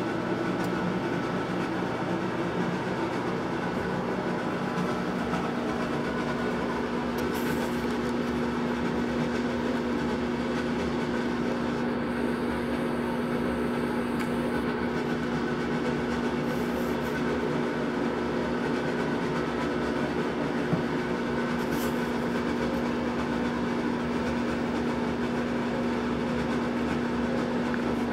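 A steady mechanical hum with a constant low tone over an even hiss, unchanging throughout.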